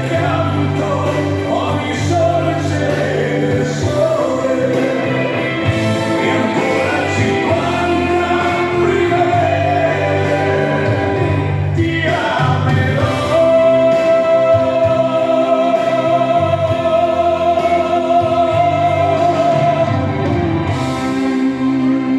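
Dance music with singing, with a steady low beat. A long held sung note starts a little past halfway and runs nearly to the end.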